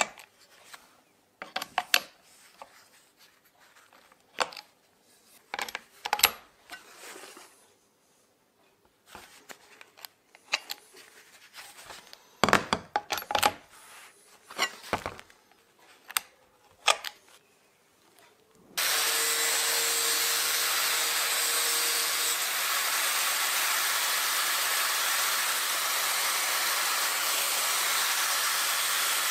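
Sharp metal clicks and knocks as the side handle's brass air-hose quick coupling is snapped into and out of the angle grinder's gearhead. About two-thirds of the way in, the angle grinder is suddenly running at full speed, steady and loud, its disc on a steel bar.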